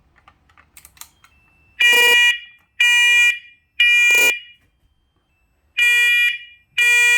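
Combination smoke and carbon monoxide alarm sounding its smoke test: loud, piercing beeps in threes, two groups of three with a pause between. This is the temporal-three evacuation pattern that signals smoke.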